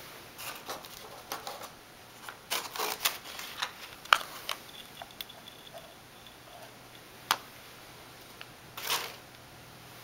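Handling sounds from the coffee maker's filter basket and paper filter: irregular plastic clicks and knocks with papery rustling. There is a sharp click about four seconds in, another a little past seven seconds, and a short rustle near the end.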